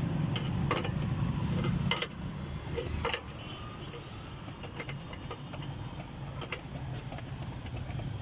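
A vehicle engine running with a low rumble, louder for the first three seconds or so. Scattered sharp clicks and knocks come from hands working the plastic wheel-arch liner beside the car's wheel.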